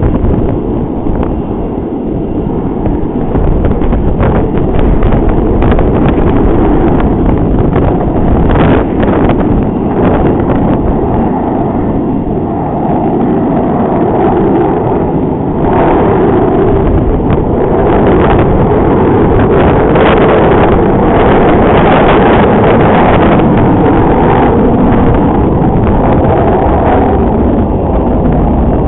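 Wind buffeting the microphone over the rumble of a jet airliner's engines, which swells through the middle and stays up toward the end.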